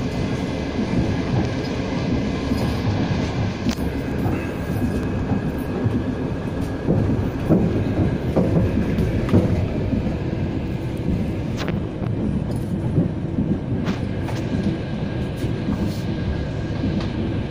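A train running along the track, heard from aboard a carriage: a steady rumble of wheels and carriage with a few sharp clicks.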